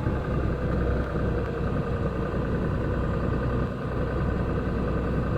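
Concrete mixer truck's diesel engine running steadily at low speed.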